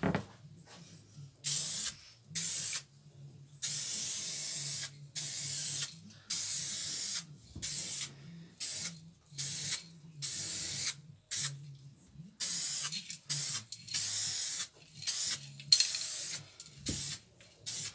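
Aerosol can of acid etch primer spraying in a quick string of short hisses separated by brief pauses, some under half a second and some over a second long. A faint steady low hum sits underneath.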